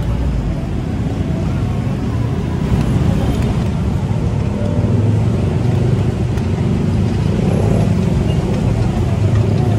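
Road traffic going by close at hand: a steady low rumble of passing vehicles.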